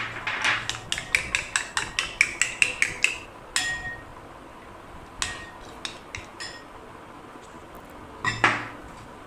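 Metal spoon whisking egg and buttermilk in a ceramic bowl, clinking against the sides about six times a second for roughly three seconds. Then a few scattered clinks and a louder knock near the end.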